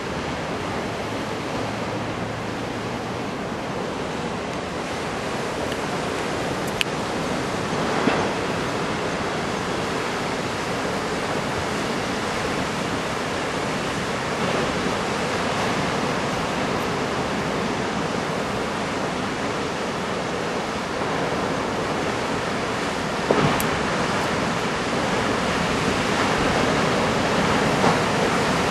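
Steady roar of heavy typhoon-swell surf breaking offshore, mixed with wind noise, with a few faint clicks.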